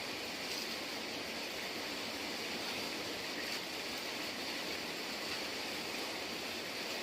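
Rain falling steadily, an even hiss of water with no breaks.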